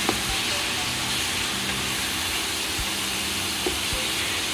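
Chicken pieces and onions sizzling steadily in hot oil in a frying pan. There are a few light clicks of a plastic slotted spatula against the pan as they are stirred: one just after the start and two near the end.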